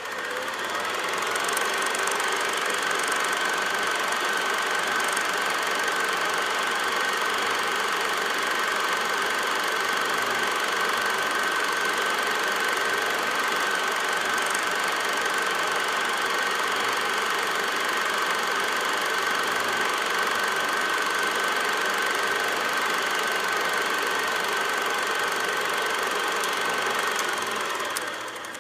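Super 8 film mechanism running steadily, a mechanical whirr with a high whine, rising in pitch as it spins up at the start and fading out near the end.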